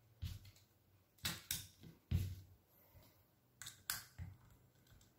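Faint clicks and light knocks from a hand tool and the disassembled PCP air rifle's action being handled, about seven short sounds spread irregularly, the loudest a little before the middle.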